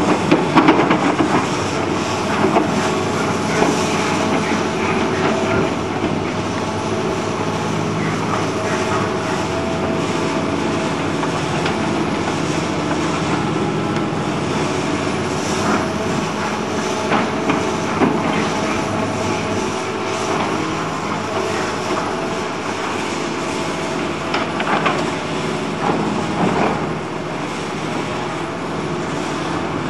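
Tracked excavator's diesel engine running steadily under load while it digs, with scattered clunks and rattles from the bucket working the rubbish.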